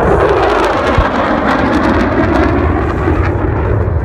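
Jet engine roar from two fighter jets flying over, a loud, steady rush. A single thump sounds about a second in.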